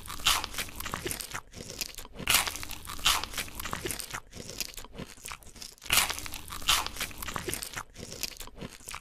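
Eating sounds: crisp crunchy bites and chewing of a filled bread roll, a loud crunch about every second with softer crackling between.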